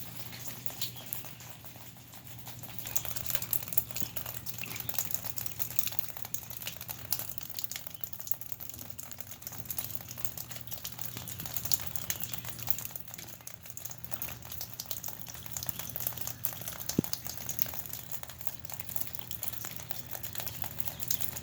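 Freezing rain and sleet falling, a dense irregular crackle and patter of small drops and ice pellets hitting surfaces, over a steady low hum.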